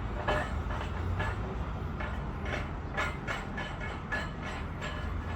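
Hyundai Xcient dump truck's diesel engine idling after a remote start, a steady low rumble with irregular light clicks over it.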